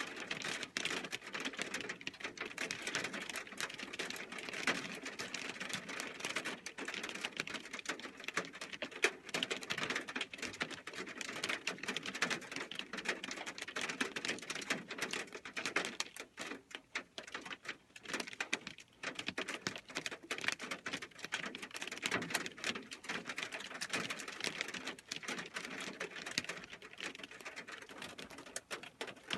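Hail and heavy rain pelting a metal roof: a dense, irregular rattle of hits, thinning a little about halfway through.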